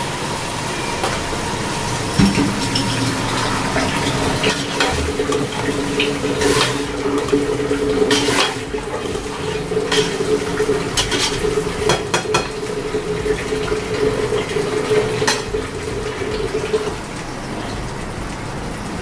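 A spoon stirring tomatoes and mutton in a stainless steel pressure cooker, scraping and clinking against the pot every second or two, over steady frying noise. A steady low hum runs under it for most of the time.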